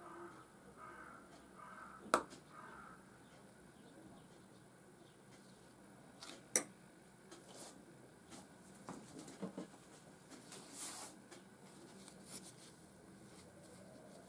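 Quiet handling of glassware and utensils on a table: two sharp clinks a few seconds apart, then a few soft knocks and a brief rustle.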